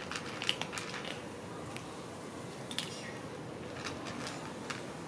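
Cat eating dry kibble: irregular crisp crunching and clicking as it chews, the sharpest about half a second in and again near the middle, over steady low background noise.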